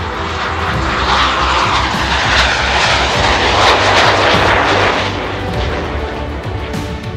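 Jet engine noise of a pair of BAE Hawk jets flying past, swelling to a peak about four seconds in and then easing off. Background music runs underneath.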